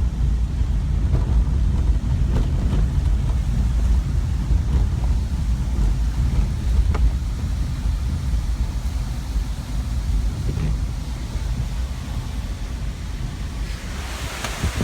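Hurricane Matthew's wind gusting and buffeting the microphone as a heavy, irregular low rumble. Near the end a brighter rushing hiss rises over it.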